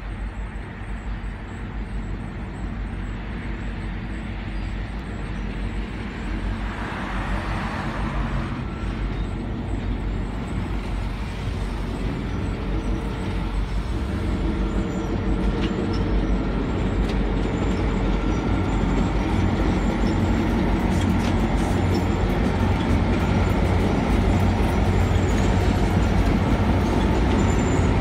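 Diesel locomotives running as they approach and pass: a low, steady engine drone that grows louder as they draw near.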